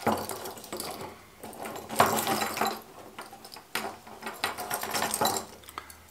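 Treble hooks of a pile of wooden crankbaits clinking and rattling against one another on a table as one lure is worked free, with irregular sharper clicks, the loudest about two seconds in.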